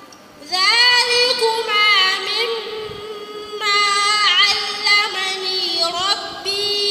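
A girl's melodic Qur'anic recitation (tajwid) into a microphone. She begins about half a second in with long drawn-out, ornamented notes, then starts a second long phrase partway through.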